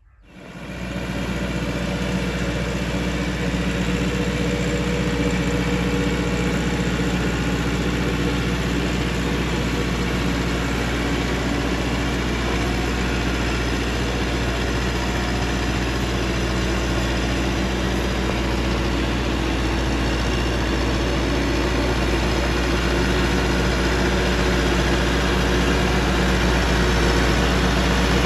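Massey Ferguson 385 tractor's diesel engine running steadily under load while it drives a rotavator through a flooded paddy field, puddling the mud for rice transplanting. The sound comes in within the first second and grows slightly louder near the end.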